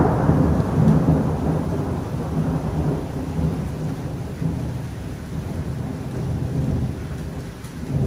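Rolling thunder rumbling over steady rain, loudest at first and slowly dying away, then rising again near the end.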